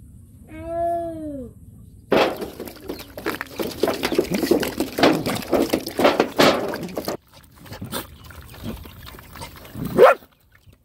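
Puppies eating wet food together, a dense run of wet smacking and lapping for about five seconds, thinning out after. Before it a puppy gives one falling whine about a second long, and near the end comes one brief, loud rising sound.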